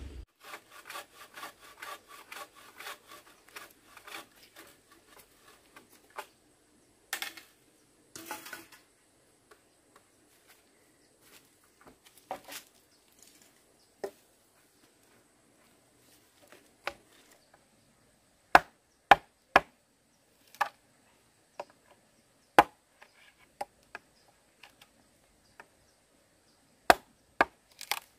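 Wood being worked by hand: a quick run of rasping, sawing strokes, then single sharp chopping knocks at uneven intervals, the loudest of them in the second half.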